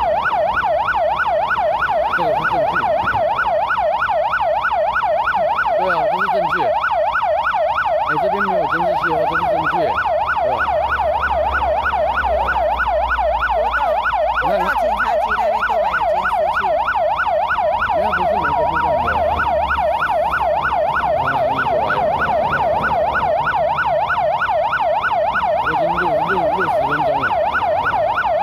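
Emergency vehicle siren in a fast yelp, its pitch sweeping up and down about three to four times a second at a steady level. A low rumble from a passing vehicle joins in for several seconds midway.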